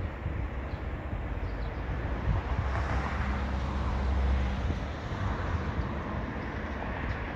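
Wind buffeting the microphone, a fluctuating low rumble with a low steady hum for a second or two in the middle.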